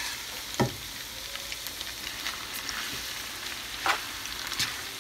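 Stir-fry of rice stick noodles, pork and peppers sizzling in a hot pan as it is tossed and stirred to warm the noodles through, with two brief knocks, one about half a second in and one near the end.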